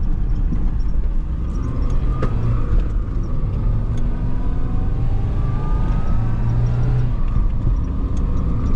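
Car engine and road noise heard inside the cabin while driving: a steady low rumble, with a faint whine that slowly rises in pitch midway through.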